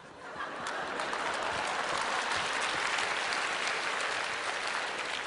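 Studio audience applauding, swelling over the first second and easing off near the end.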